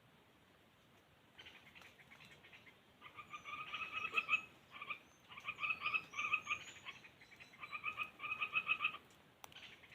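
Laughingthrush giving rapid rattling, chattering calls in three bouts of about a second and a half each, starting about three seconds in, after a fainter stretch of chatter. Faint high chirps sound over them.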